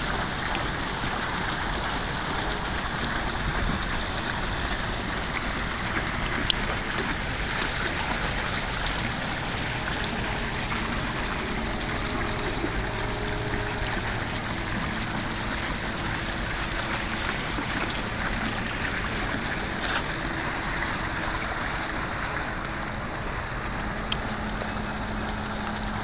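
Small fountain jets splashing steadily into a tiled basin: a continuous rush of falling water.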